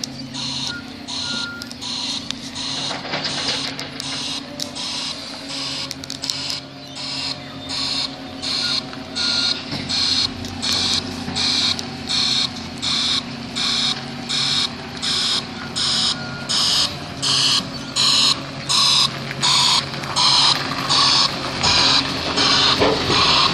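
Garbage truck's reversing alarm sounding about three pulses every two seconds, a hissy pulse rather than a pure beep, growing louder as the truck backs closer, over the steady running of its Volvo diesel engine.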